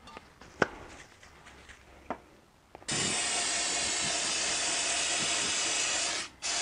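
Aerosol spray cleaner sprayed into a transmission bellhousing to flush old grease off the input shaft: one steady hiss of about three seconds, then a short pause and a second burst starting near the end. A couple of faint clicks come before the spraying.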